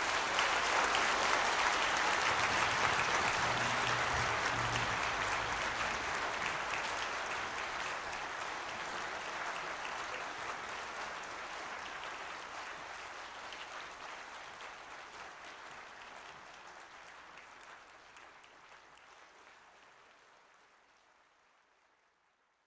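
Concert audience applauding, loudest in the first few seconds, then dying away gradually over about twenty seconds.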